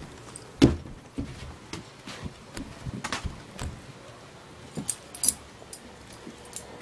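A small dog scampering and jumping on wooden porch boards: a scatter of sharp knocks and clicks, the loudest a little over half a second in, with further clusters around the middle and near the end.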